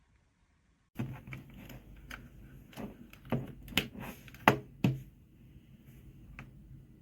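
A run of irregular clicks and knocks that starts about a second in, with several louder knocks in the middle, over a low steady hum.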